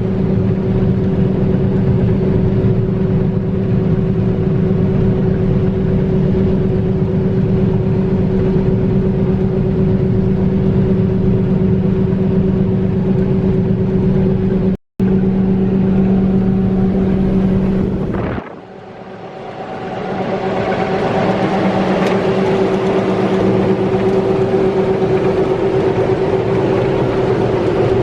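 Heavy farm machine's engine running at a steady speed, a constant drone. It cuts out for an instant about halfway through. A few seconds later the sound drops away suddenly and a different, hissier engine noise swells back up.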